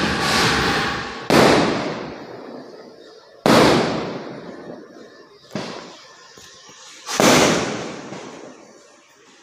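Firecrackers going off: three loud sudden bangs, about a second, three and a half and seven seconds in, each dying away over a second or two, with a smaller bang between them.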